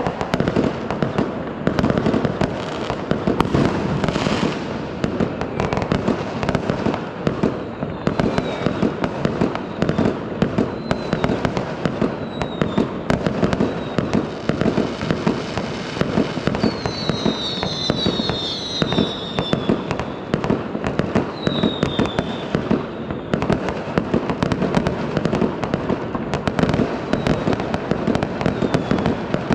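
Fireworks and firecrackers going off without a break, a dense run of crackling bangs. A rising whoosh comes about four seconds in, and a cluster of short falling whistles sounds around two-thirds of the way through.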